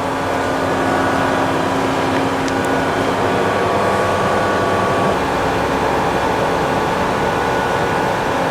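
Horizontal boring mill running under power with its spindle turning at about 1,000 RPM: a steady machine hum and whine made of several constant tones.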